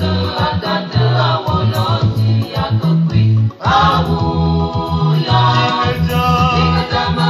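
Gospel song playing: several voices singing over a steady bass line, with a brief break about three and a half seconds in.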